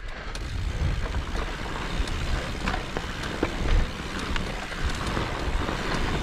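Wind buffeting the camera microphone while an e-mountain bike rolls over a dirt trail, with a steady rumble of tyres on the ground and scattered clicks and rattles from the bike.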